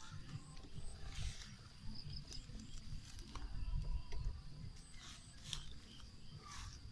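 Leafy vines rustling and swishing as they are handled and piled over a pit, in a few separate bursts, over a constant low rumble and a steady high insect drone.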